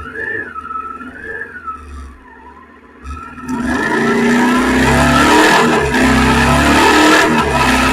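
Suzuki SV650X motorcycle's V-twin engine, its note rising and falling for the first few seconds, then running much louder from about three and a half seconds in.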